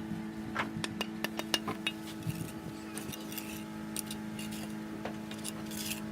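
Scattered sharp clinks and taps of hand tools on masonry, several in quick succession about half a second to two seconds in, over a steady low machine hum.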